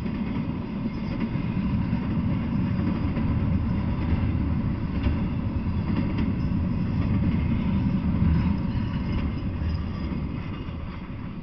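Intermodal freight train's container and trailer cars rolling past on the rails: a steady low rumble with some wheel clatter, fading near the end as the last car goes by.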